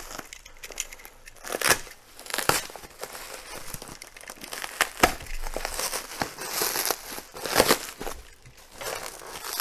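Plastic bubble wrap crinkling and rustling as a box cutter slits it open and hands pull it apart, with scattered sharp crackles.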